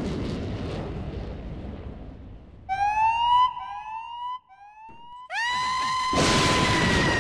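Dramatic electronic sound effects on a film soundtrack: a low rumble dies away, then come about four short rising tones, and halfway through a steady high tone sets in. A rush of noise swells in under the tone near the end.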